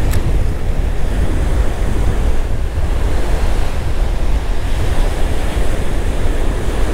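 Strong wind buffeting the microphone over breaking surf, a loud, gusty rumble with the wash of waves, and one short sharp click at the very start.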